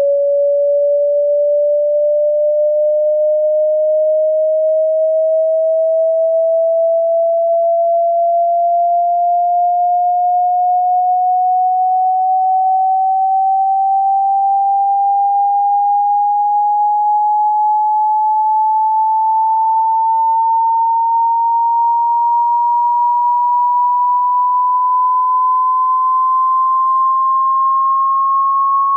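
A single pure sine tone from a hearing-test frequency sweep, gliding slowly and steadily upward from about 550 Hz to about 1.1 kHz. The level pumps slowly, which is put down to YouTube's audio compression.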